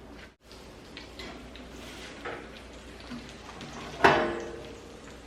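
Light kitchen handling noises with small clicks, then one loud metallic clank about four seconds in that rings briefly and fades.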